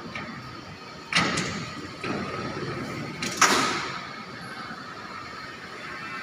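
A sharp bang, then a rumbling, sliding sound lasting about a second, ending in a louder bang that rings briefly, over a steady background hum.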